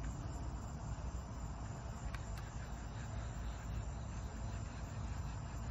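Steady night-time outdoor background: a low rumble with insects chirping faintly, and a couple of faint clicks about two seconds in.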